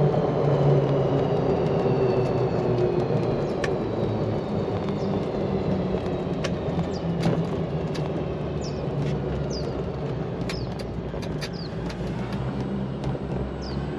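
Icon i60L electric golf cart driving along a street: a steady rush of tyre and wind noise, with a faint whine that slowly falls in pitch. Birds chirp several times, mostly in the second half.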